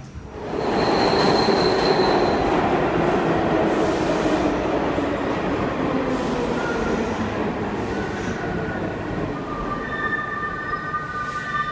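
R46 subway car running on the track: a loud rumble sets in about half a second in, with a brief high whine near the start. Over the last few seconds the wheels squeal in several high steady tones.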